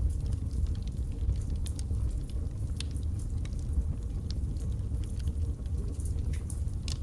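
Wood fire burning in a fireplace: a steady low rumble of the flames with irregular sharp crackles and pops from the logs.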